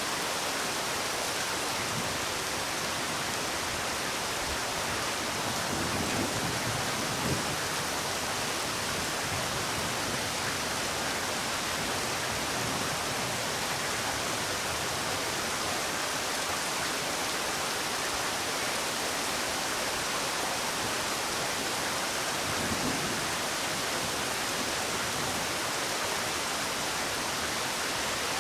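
Steady rain falling, an even, dense hiss with no single drops standing out. A couple of brief, slightly louder low swells come about seven seconds in and again near twenty-three seconds.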